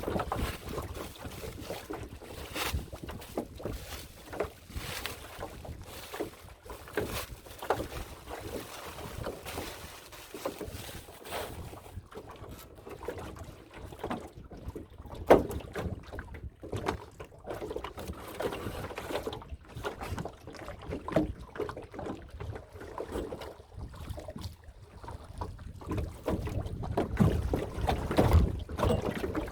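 Small boat on a fish pond, with uneven knocks and water sounds against the hull and wind on the microphone. There is one sharp knock about halfway, and the low rumble grows louder near the end.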